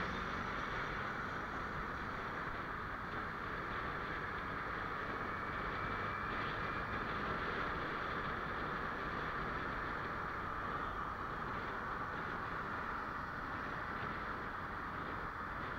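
Steady rush of wind and road noise heard from a moving motorcycle, with the bike's engine running underneath.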